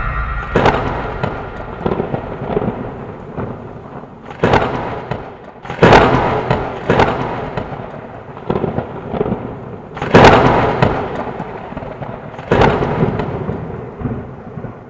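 Thunder sound effect: a series of sudden cracks of thunder, each rumbling away over a second or so, with a steady hiss between them. The loudest claps come about six seconds and ten seconds in.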